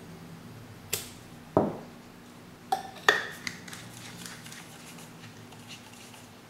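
A handful of separate sharp clicks and knocks as hard parts of an airsoft gas stun grenade are handled, about five in the first three and a half seconds, then only faint ticks.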